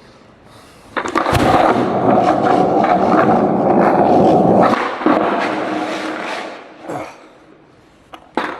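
Skateboard rolling on wet pavement: a sharp clack about a second in, then loud wheel noise that fades out, and a single knock from the board near seven seconds.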